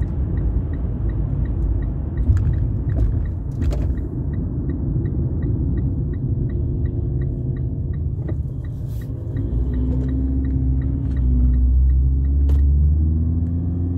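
Low road and engine rumble inside a moving car, with a turn signal ticking evenly about two and a half times a second. From about ten seconds in, the engine note rises as the car speeds up.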